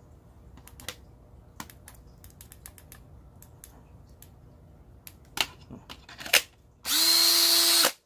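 A few sharp plastic clicks of handling, then near the end a DeWalt 18-volt cordless drill/driver's motor spins up quickly and runs steady at full speed for about a second before cutting off. It is running on a 20-volt battery through the 18-volt adapter, a test that the adapter powers the old tool.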